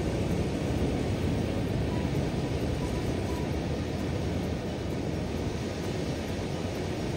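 Steady outdoor rushing noise of wind and surf at the seashore, even and unbroken.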